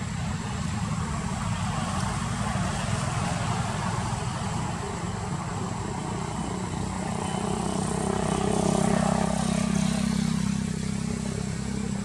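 A motor vehicle's engine running nearby, growing louder about eight seconds in and easing off near the end.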